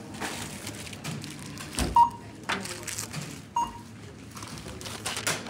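Two short electronic beeps of the same pitch, about a second and a half apart, like keypad button tones. A knock comes just before the first beep, and light clicks and rustling go on around them.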